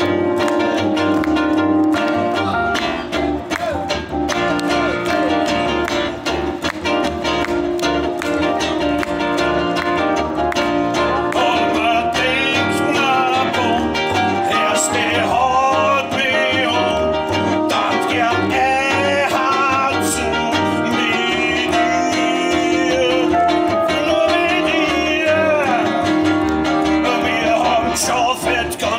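Live Austropop band playing: keyboard, double bass and guitar, with a man singing into a microphone. The vocal line stands out mostly from about twelve seconds in.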